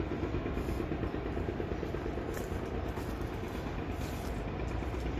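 A steady low rumble with faint, irregular footsteps on a dry dirt forest path.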